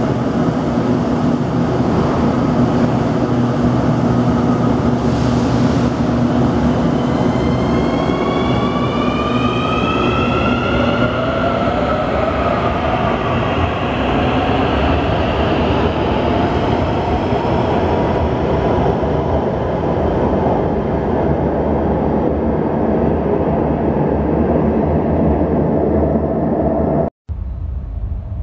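Santiago Metro CAF AS-14 electric train running with a steady rumble. About a third of the way in, its traction motors give a whine in several tones that rise in pitch and then level off. The sound cuts off abruptly about a second before the end.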